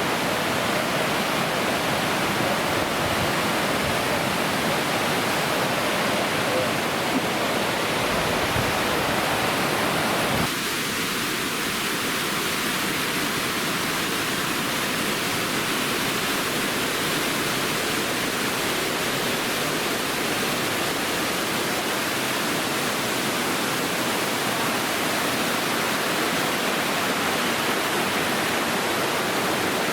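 Waterfall: a steady rush of falling water. Its tone changes abruptly about ten seconds in.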